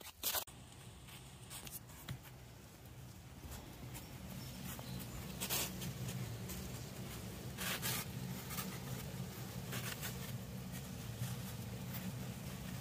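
Maple sap boiling hard in stainless steel pans on a cinder-block boiler: a steady low rumbling bubble with a few sharp crackles.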